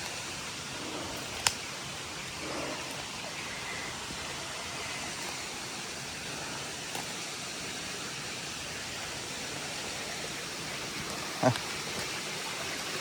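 Rain-swollen creek rushing steadily, the even hiss of fast water over small falls. A sharp click about a second and a half in and a short knock near the end.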